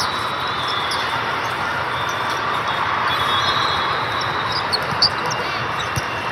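Volleyball match in a gymnasium: steady murmur of the crowd and hall, with a few short squeaks of sneakers on the court and a dull ball thump shortly before the end.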